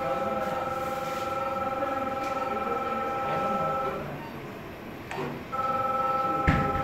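Steady multi-tone electronic beep of a surgical laser console sounding while the laser fires on a kidney stone. It cuts out about four seconds in and resumes a second and a half later. A short thump near the end.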